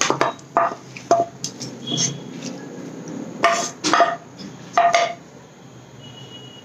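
A wooden spatula scraping and knocking against a metal frying pan as cooked leaves are emptied out of it. About eight sharp knocks come over the first five seconds, some with a short metallic ring, and the loudest come around three and a half to four seconds in.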